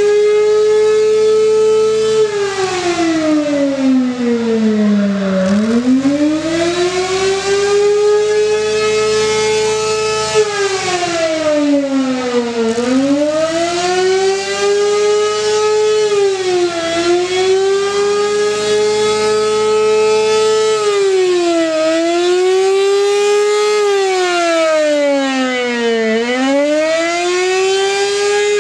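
Mobile Directo engine-driven siren with a rotating horn, wailing. The tone climbs and holds high, then sweeps down and back up about five times: deep drops about five and thirteen seconds in, shallower dips later.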